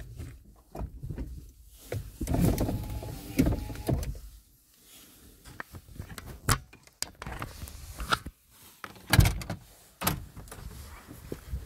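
Irregular clicks, knocks and rustles of handling inside a stopped vehicle's cabin, with a short whirr about two seconds in. The loudest knock comes a little after nine seconds.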